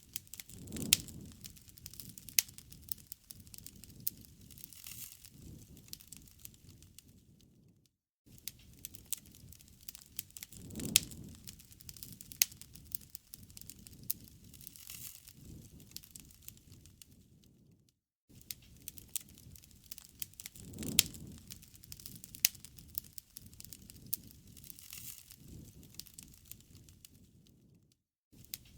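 Campfire crackling: sharp irregular pops over a low rustle of burning wood. The sound breaks off in a short silent gap about every ten seconds, where the recording loops.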